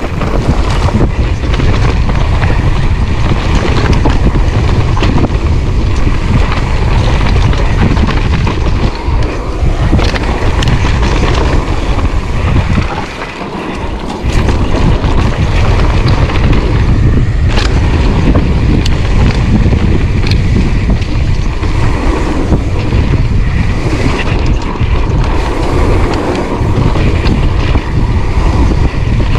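Wind rumbling on the microphone of a camera on a mountain bike descending a dirt trail, with the tyres and bike rattling and clicking over bumps. The rumble eases briefly about thirteen seconds in, then returns.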